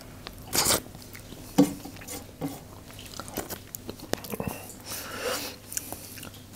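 Close-up eating sounds: a man biting and chewing a piece of Kadaknath chicken in korma gravy, irregular and noisy. There is a louder bite about half a second in and a sharp click about a second and a half in.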